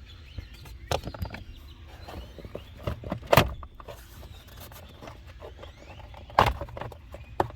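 Scattered sharp knocks and clicks of hands and tools working on a car's plastic steering column trim, the loudest about three seconds in and again just past six seconds, over a steady low hum.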